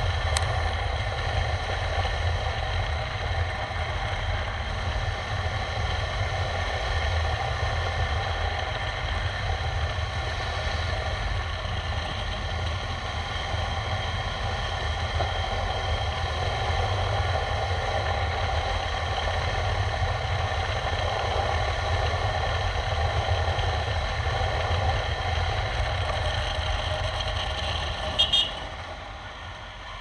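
KTM 390 Adventure X's single-cylinder engine running steadily at cruising speed, with wind rumble and tyre hiss on wet tarmac. Near the end there is a brief sharp sound, then the engine note drops away as the throttle closes and the bike slows for a hairpin.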